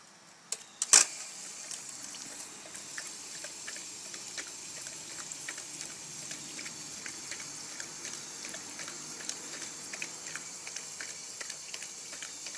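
A loud click about a second in, then a dog water fountain running steadily, with many small splashing ticks as the dog drinks from the stream.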